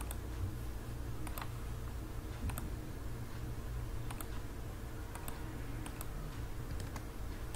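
Scattered clicks of a computer mouse, roughly one a second and irregular, over a steady low hum.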